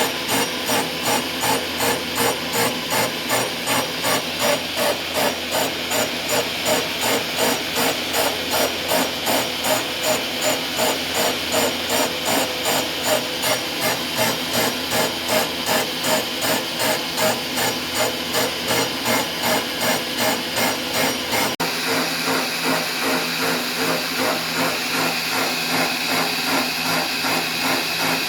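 A machine tool cutting metal, planing the mini lathe's V-ways flat: a loud, harsh cutting noise that pulses evenly about three times a second. About three quarters of the way through it breaks off sharply and goes on steadier.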